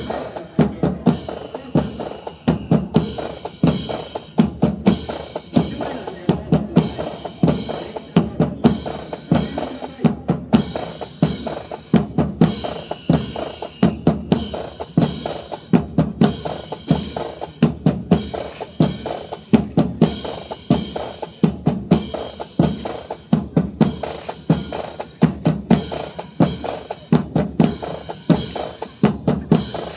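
Snare and bass drums playing a steady, repeating drill cadence.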